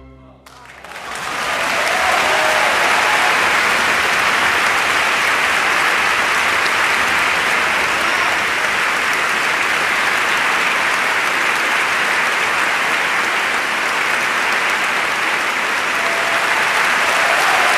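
Audience applauding, breaking out just as the last chord of the oboe concerto dies away and building within about two seconds to dense, steady applause.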